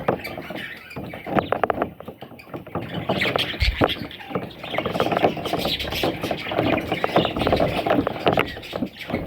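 Budgies chattering and warbling: fast scratchy clicks and short squeaky notes that get busier about three seconds in.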